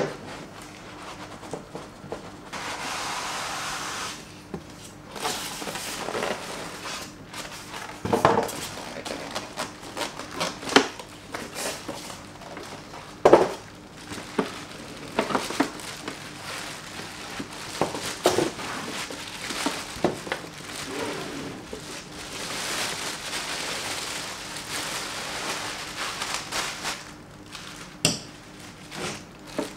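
Unboxing an espresso machine: the cardboard box, foam packing and plastic bag are handled with irregular knocks and clicks. There are stretches of rustling and crinkling as the bag is pulled off.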